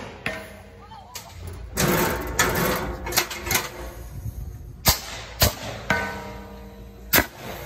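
Apple cannons firing with several sharp, loud bangs, three of them in the second half. A longer rushing burst of noise comes about two seconds in.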